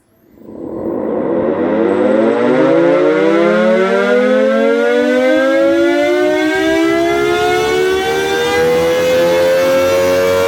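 Freshly restored Carter-type air raid siren, run by a variable-frequency drive, spinning up from rest. Its wail rises steeply in pitch and loudness over the first couple of seconds, then climbs more slowly toward full speed and nearly levels off near the end.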